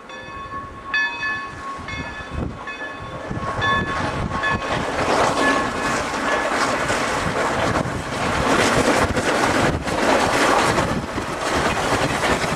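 Pere Marquette 1225, a 2-8-4 Berkshire steam locomotive, sounds its steam whistle in a series of blasts for about the first five seconds. The sound of its exhaust and running gear then grows steadily louder as it comes up and passes close by.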